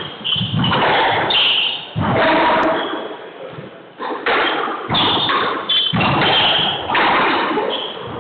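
Repeated echoing thuds and slams from squash balls striking walls and glass on nearby courts, a sharp hit roughly every second with a long reverberant tail.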